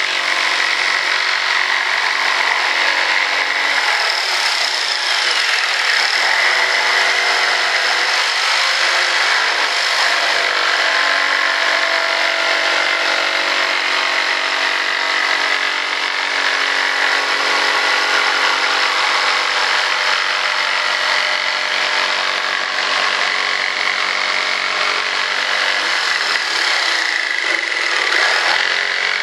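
Electric jigsaw running steadily as it cuts a long straight slot through a white-faced board.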